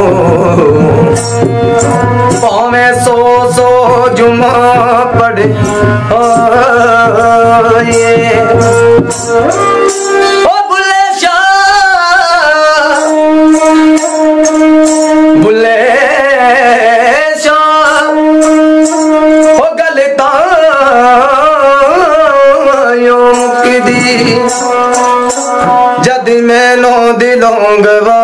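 Bowed folk fiddle with sympathetic strings played solo: a wavering, sliding melody over a steady drone, with light rhythmic jingling from the bells on the bow. A low hum under the music drops out about ten seconds in.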